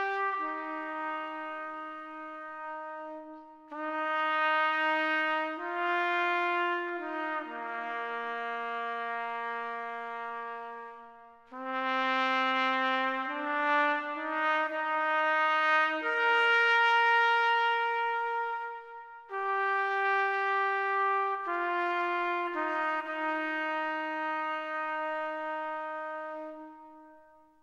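Music: a slow melody played on brass, long held notes in phrases of about eight seconds with short breaks between, fading out near the end.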